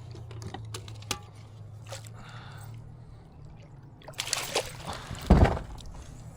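Hooked bass splashing and thrashing at the water's surface beside the kayak as it is brought in, with a few sharp clicks earlier and a loud thump about five seconds in.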